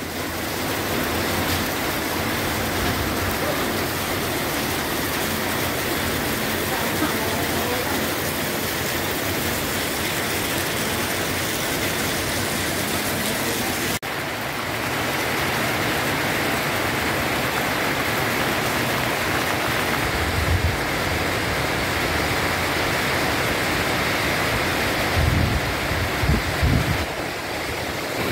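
Heavy rain pouring down steadily. There is a short break about halfway through, and a few low thumps in the second half.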